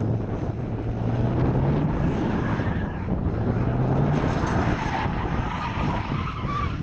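Mazda RX-7's rotary engine revving as the car drifts, its pitch climbing twice, then the tyres squealing in a long high tone near the end.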